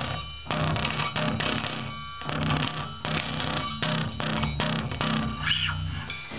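Bass played through a Behringer BXL450 45-watt bass combo amplifier: a run of low notes with a rough, noisy edge on top.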